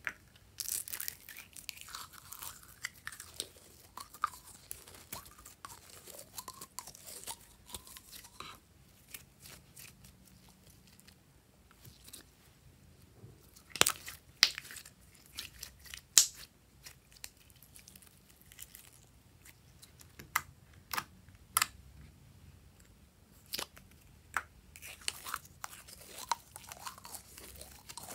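Slime being squeezed inside and pulled out of a small plastic bottle by hand: a run of wet, sticky clicks and pops, with a few louder sharp pops around the middle.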